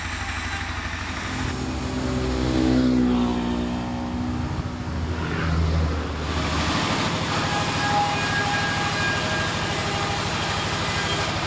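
A machine engine running steadily, its pitch sweeping down and back up between about two and four seconds in, then settling into an even running sound.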